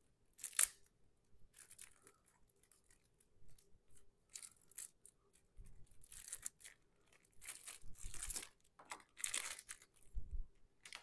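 Plastic wrapping being picked at and torn open on a pack of game cards: irregular short crinkling, tearing rasps, several in quick succession in the second half.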